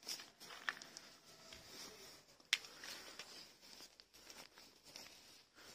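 Faint rustling and crinkling of nylon jackets and plastic bale wrap being handled, with a sharp click about two and a half seconds in.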